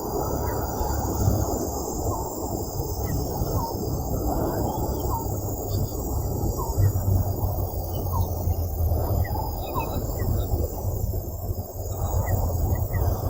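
Outdoor natural ambience: a steady high insect drone, short chirps scattered throughout, and a constant low rumbling noise underneath.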